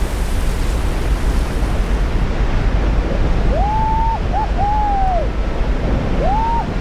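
Steady roar of rushing water. Over it, about halfway through and again near the end, come two pairs of short calls that rise, hold and fall.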